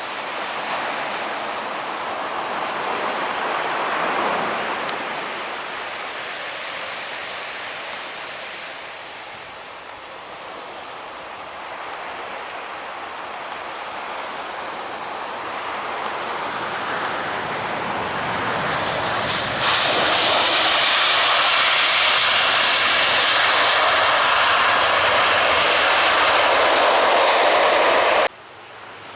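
Aircraft engines close by as a plane passes low near the runway: a loud rushing roar that builds up and holds at full strength for several seconds, then cuts off suddenly near the end.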